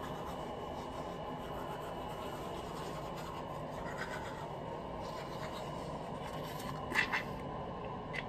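Manual toothbrush scrubbing teeth, a steady rasping brushing, with two short sharper sounds about seven seconds in.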